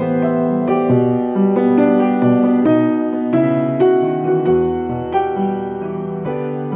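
Solo grand piano playing a ballad arrangement: a melody with chords over held bass notes, a low bass note sounding for about two seconds near the end before a new chord comes in.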